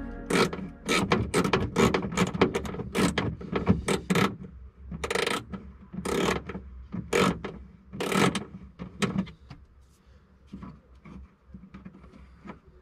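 Quick clicks and knocks of a ratchet wrench and metal and plastic parts being handled as bolts are turned. The clicking is dense for about the first nine seconds, then thins out to a few scattered clicks.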